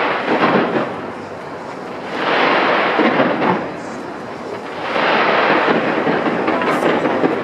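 Fireworks going off in waves of booms and crackle, three loud swells each lasting a second or two.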